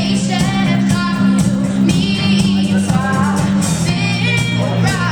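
A band playing live with a lead singer: a steady bass line and beat under a sung melody.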